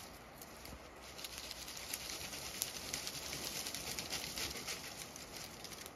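Faint crackling and rustling of twigs and brush as a freshly cut maple branch is pulled through the undergrowth, with footsteps in snow. Many small, quick clicks come from about a second in until near the end.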